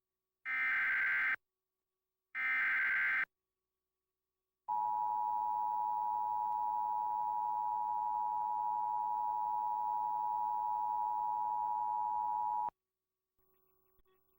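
Emergency Alert System signal. Two short screeching digital header bursts (SAME data) come first. After a pause, the two-tone attention signal sounds as a steady dual-pitched tone for about eight seconds, then cuts off. Together they mark the start of a flash flood warning broadcast.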